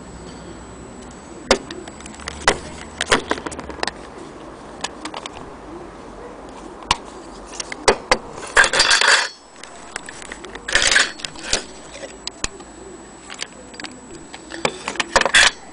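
Small metal parts of an antique French mantel clock movement being handled and knocked together: irregular clicks and clinks, with short rattling bursts about halfway through and near the end.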